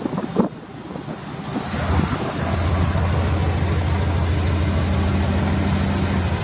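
Subaru Legacy B4 RSK's twin-turbo flat-four idling steadily through an aftermarket BLITZ exhaust, a low even hum that swells over the first two seconds and then holds. There is a single click about half a second in.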